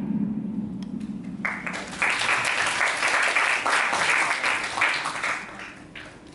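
An audience applauding: clapping starts about one and a half seconds in, holds for a few seconds and dies away near the end.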